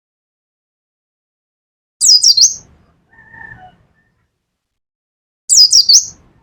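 Pleci (white-eye) giving two short, loud bursts of 'nembak' song, each a quick run of three or four high downward-sweeping whistles, about three and a half seconds apart.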